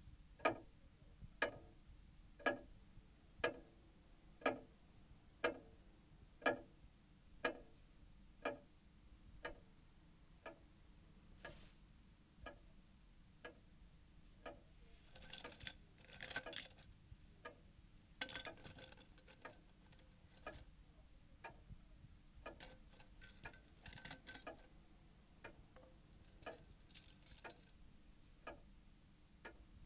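A clock ticking about once a second, the ticks clearer in the first several seconds and fainter later. A few short noisy bursts come in around the middle and again near the end.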